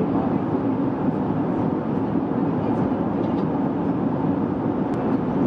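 Steady cabin drone of an Airbus A321-211 in cruise flight: engine and airflow noise heard from inside the passenger cabin, even and unchanging.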